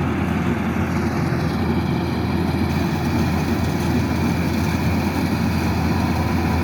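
Kubota DC-108X rice combine harvester's diesel engine running at a steady, even drone.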